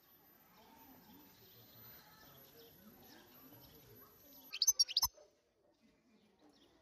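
European goldfinch giving a short, loud burst of quick twittering chirps about four and a half seconds in, cut off by a sharp click; before it, only a faint low background murmur.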